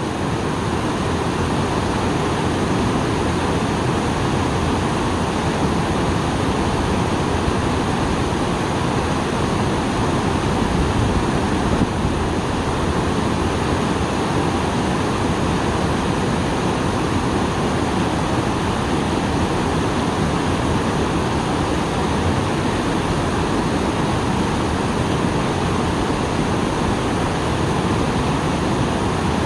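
Small waterfall running full after rain: water falling and splashing in a steady, deep rushing noise that stays even throughout.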